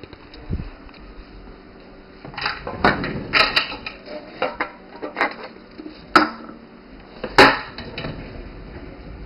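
Irregular knocks and light clatter of objects being handled on a wooden desk: about a dozen sharp taps, starting about two seconds in, with the loudest near the middle and near the end.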